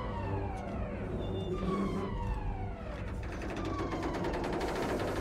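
Starship alarm sounding: a falling wail that repeats about every two seconds, over a low steady hum. A rapid rattling joins in around the middle.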